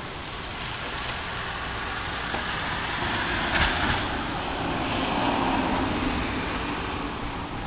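A car passing on the street, its noise swelling over a few seconds and fading again, with a sharp click near the middle.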